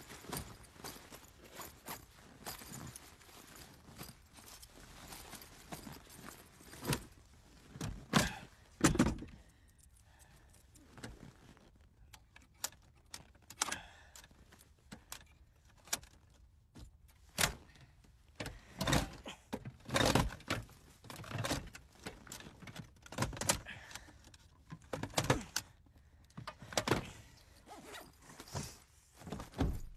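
Handling noises inside a car cabin as a man works at the steering column and dashboard: a string of irregular thunks, clicks and rustles, with a few louder knocks.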